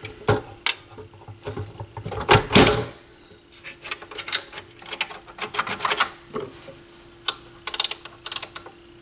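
Handling noise from a Technics SL-1301 turntable chassis: a few heavy thumps as it is set down on the bench in the first three seconds, then a run of small, sharp mechanical clicks as the tonearm linkage and a control knob are worked by hand. A faint steady hum lies underneath.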